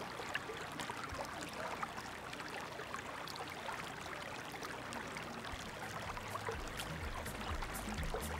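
Shallow creek trickling and babbling over stones, a steady fine-textured rush. Low music notes fade in over the last couple of seconds.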